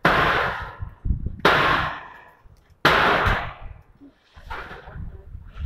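Corrugated metal roofing sheets banging and clattering against a steel roof frame as they are torn off. There are three loud crashes, at the start, about a second and a half in and about three seconds in, each ringing away over about a second, and a fainter one near the end.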